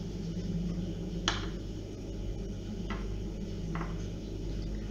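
A spoon lightly tapping a non-stick baking tray as chopped chicken-and-zucchini mince is spooned out and shaped into cutlets: three faint clicks over a steady low hum.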